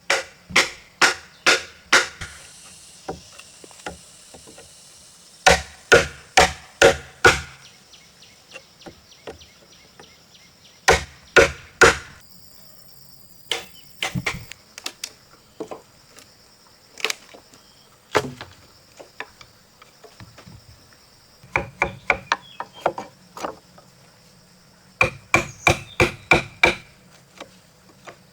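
Repeated blows of a hand tool on timber, in runs of four or five strikes about two a second, with lighter, quicker taps between the runs.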